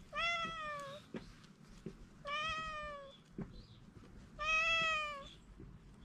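Tabby cat meowing three times, about two seconds apart; each meow is a drawn-out call of nearly a second that falls slightly in pitch.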